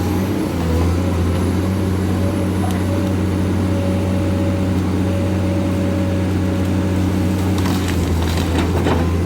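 Excavator's diesel engine running at a steady pitch, with a few sharp cracks and knocks near the end.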